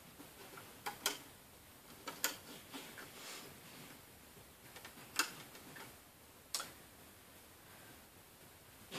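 Faint, irregular sharp clicks and snaps of rubber loom bands being stretched onto the pegs of a clear plastic Wonder Loom, about five in all, some in quick pairs.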